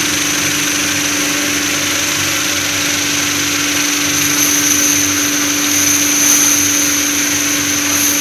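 A 120-litre vibratory bowl finishing machine running, its steady motor hum under the hiss of polishing media churning in the bowl. From about four seconds in, a load of metal parts is tipped into the bowl, adding a brighter clatter.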